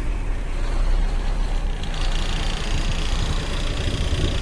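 BharatBenz truck's diesel engine running steadily, heard from inside the cab as a low rumble. A steady high hiss joins about two seconds in.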